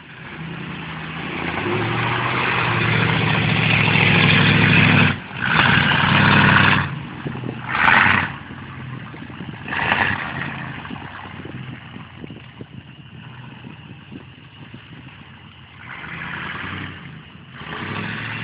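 A lifted 4x4 pickup's engine revs hard in repeated surges as it drives through mud on 39-inch Super Swamper tires. The revs build over the first few seconds and peak again about six, eight and ten seconds in. It settles to a lower, uneven run, then rises once more near the end.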